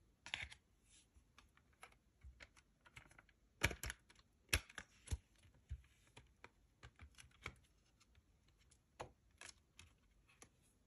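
Plastic CD jewel case being opened and handled: a string of sharp clicks and taps, the loudest cluster about four to five seconds in.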